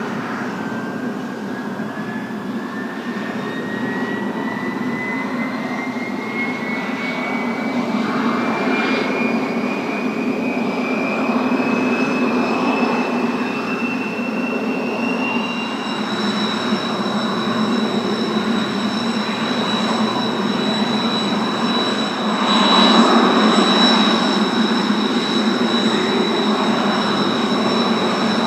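Kawasaki T-4 jet trainers' twin turbofan engines running on the ground. A single whine climbs slowly in pitch for about the first half, as an engine spools up. Over the second half several steady high whines hold over a continuous roar.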